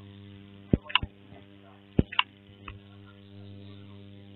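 About half a dozen sharp, short clicks in the first three seconds, from taps on a smartphone's touchscreen keyboard and Next button, over a steady low electrical hum.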